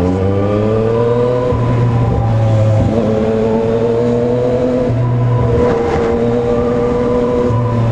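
Motorcycle engine revving up over the first second and a half, then running at a fairly steady pitch while riding, heard from a camera mounted on the bike.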